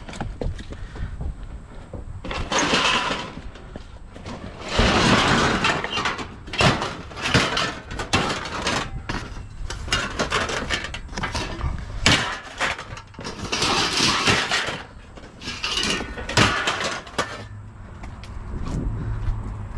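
Trash and scrap being rummaged through and tossed about: an irregular run of clattering knocks, with several louder crashing, rustling stretches.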